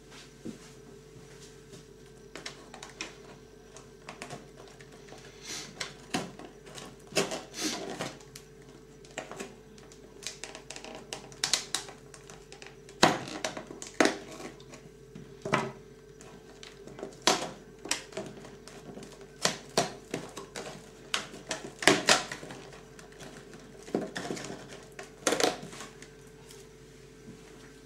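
A cardboard advent calendar door being pried and pushed open by hand: an irregular run of sharp cardboard clicks, taps and rustles.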